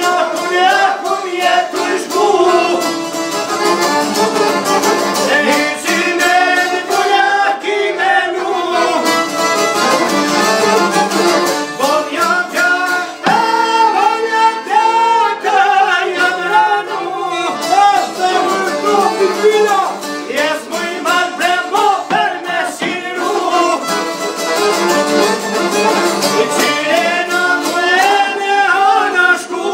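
Albanian folk song played live: a man sings while strumming a long-necked lute, accompanied by violin and accordion. The music runs continuously, with a more sustained instrumental passage around the middle.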